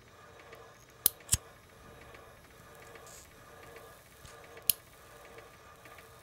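Metal cigarette lighter being handled and struck: two sharp clicks close together about a second in, and another a little before the fifth second, over a faint steady hum.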